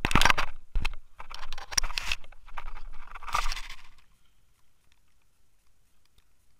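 Handling noise on a drone-mounted action camera: a close run of knocks, clicks and scrapes from fingers and the drone frame, stopping about four seconds in once the drone rests in the grass.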